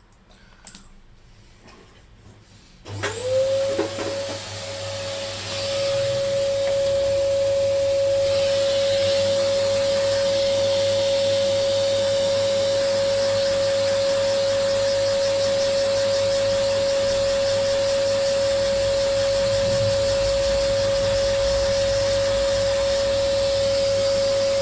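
A handheld electric dust-cleaning tool switches on about three seconds in, its motor spinning up within a fraction of a second to a steady high whine over rushing air, and it runs on unchanged. It is being used to clear dust from inside a laptop. Before it starts there are a few faint handling clicks.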